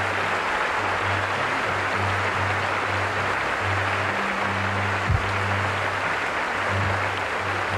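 Theatre audience applauding steadily, with a low on-and-off hum underneath and a single brief knock about five seconds in.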